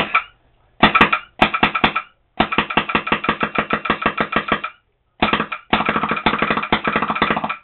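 Smart Parts Vibe electronic paintball marker, its Virtue board set to 15 balls per second, firing on full auto in rapid strings of shots that break off and restart several times. The marker has a hard time shooting at 15.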